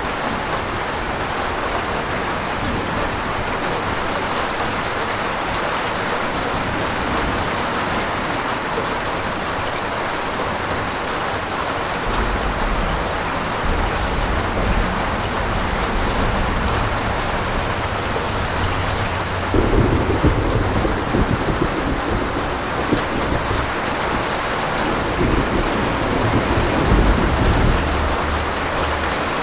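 Steady heavy rain with thunder: a low rumble comes in about twelve seconds in, and a louder roll of thunder breaks in suddenly about twenty seconds in and rumbles on until near the end.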